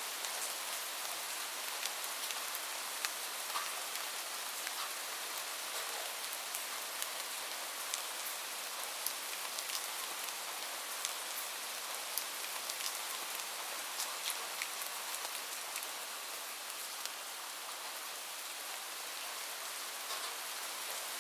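Light rain falling steadily: an even hiss with scattered sharp drops ticking on a surface.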